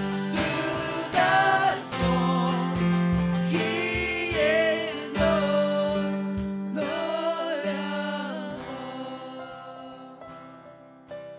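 Live worship band, voices singing with acoustic guitar, keyboard and cajon. About eight and a half seconds in the singing stops and the music dies away, leaving a few soft, sparse keyboard notes as the song ends.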